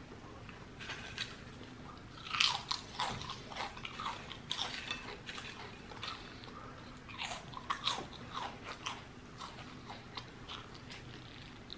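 A person chewing a mouthful of cheesesteak close to the microphone: irregular bites and wet mouth clicks, thickest between about two and five seconds in and again around seven to nine seconds.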